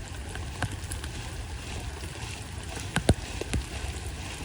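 Steady hiss of rain falling on the water, with a couple of sharp knocks about three seconds in.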